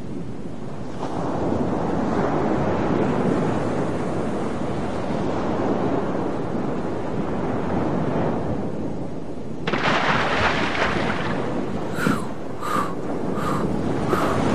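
Wind and sea ambience: a steady rushing noise that swells about a second in, then turns louder and brighter about ten seconds in. Near the end a string of short sharp sounds, about one every two-thirds of a second, rides over it.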